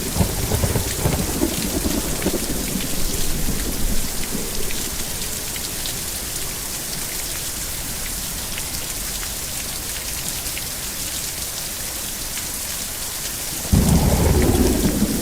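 Steady heavy rain hissing, with thunder rumbling over the first few seconds and fading away, then a sudden loud crack of thunder near the end.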